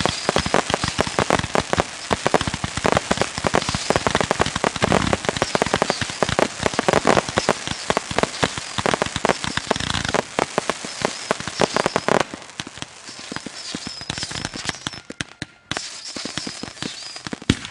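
Crackling fireworks: a dense, rapid hail of small pops that thins out and gets quieter about twelve seconds in.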